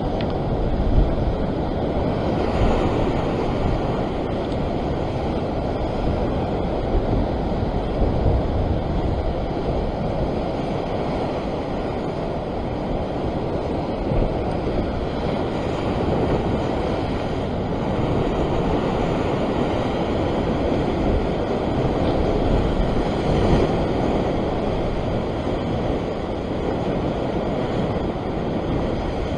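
Rough surf washing and breaking against a rock ledge, a continuous rushing of whitewater, with wind buffeting the microphone.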